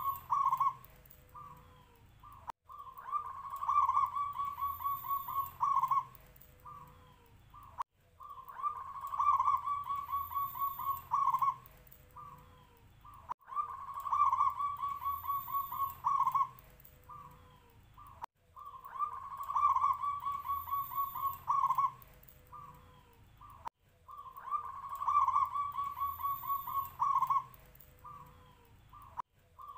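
Zebra dove (perkutut) cooing: the same song phrase repeats about every five and a half seconds, each a rapid run of pulsed coos followed by a few short notes and a low trailing note.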